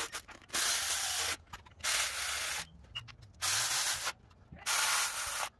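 Hand ratchet wrench turning the water pump bolts in, ratcheting on each back-swing: four rasping strokes, each under a second long and about 1.3 s apart.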